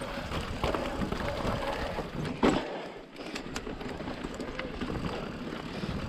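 Mountain bike riding over a rough trail: tyre noise and rattling with a steady low rumble of wind on the microphone, and a sharp knock about two and a half seconds in.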